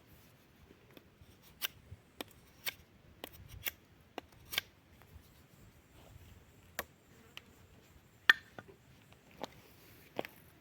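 A knife working wood: irregular sharp clicks and small snaps, about fifteen over ten seconds, the loudest about eight seconds in.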